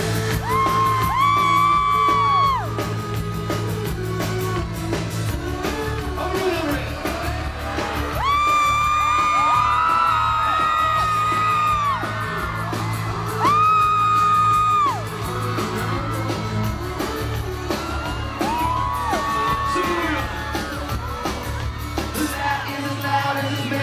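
Live pop band playing with singing, with high sustained voices from the crowd screaming and singing along over the steady bass of the backing.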